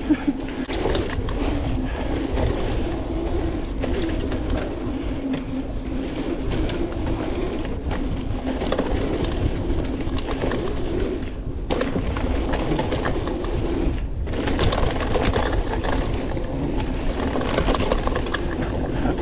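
1994 Specialized Stumpjumper FSR mountain bike riding fast down a dirt trail: tyres rolling over dirt under a steady hum, with constant clattering from the chain slapping against the frame. The sound drops away briefly twice, about eleven and fourteen seconds in.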